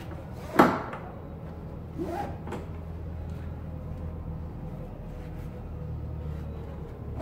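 A kayak seat's straps and buckles being tugged and adjusted against the plastic hull by hand. There is a sharp knock about half a second in, then softer knocks and scraping about two seconds in.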